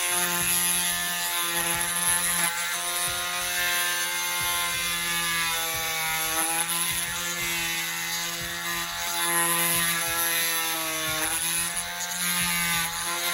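Dremel-type rotary tool running with a steady whine as it sands down a plastic action-figure peg. Its pitch sags briefly twice, about six and eleven seconds in, then it stops at the end.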